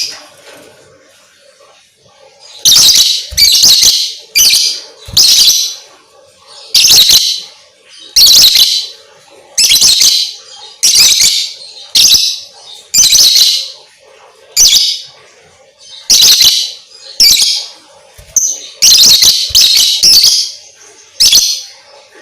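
Lovebird giving loud, shrill chirping calls in short bursts, repeated about once a second with uneven gaps. It is the kind of calling used as a lure to set other lovebirds singing.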